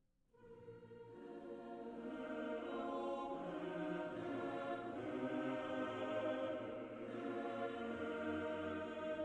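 Background music of slow, sustained chords that swell in just after a brief near-silent moment at the start.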